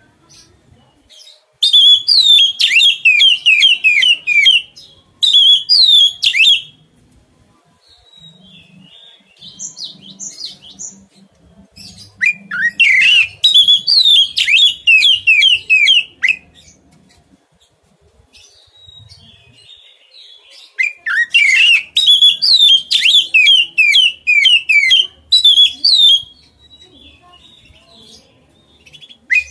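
Oriental magpie-robin (kacer) singing: bursts of rapid, repeated down-slurred notes, about five phrases of one to four seconds each, with quiet gaps between.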